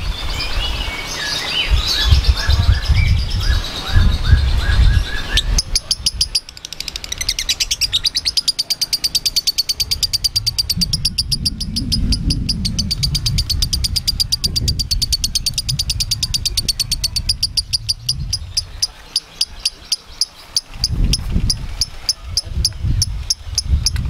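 Lovebird giving a long, rapid chattering trill (ngekek): after a few scattered high chirps, an even run of quick high chirps starts about five seconds in and carries on almost to the end.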